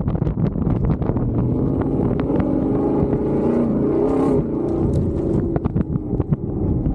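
Off-road vehicle's engine running under load on a rough dirt track, revving up about halfway through and then easing off, with many sharp knocks and rattles throughout from the bumpy ground.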